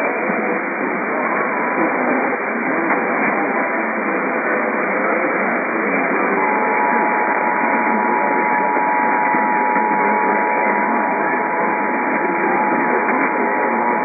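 Hissy, band-limited AM radio reception full of static. About six seconds in, the Emergency Alert System two-tone attention signal begins: two steady tones sounded together and held to the end. It marks the start of an emergency alert, here a severe thunderstorm warning.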